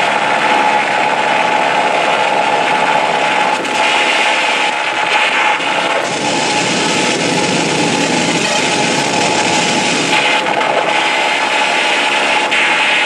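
Loud harsh noise music played live: a dense wall of hiss and grinding with a steady held tone running through it, its upper texture changing every second or two.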